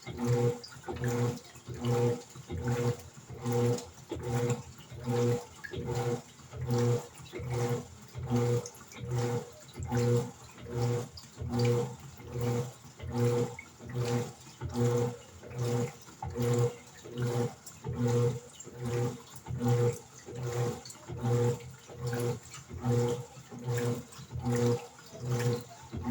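Electrolux LED14 14 kg washing machine agitating its wash load. The motor hums in short, regular pulses, a little more than one a second, as it turns the clothes back and forth, with water sloshing.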